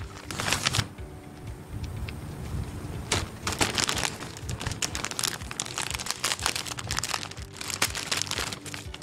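Clear plastic packaging bags crinkling and rustling as they are handled and pulled open. The sound comes in bursts with short lulls between.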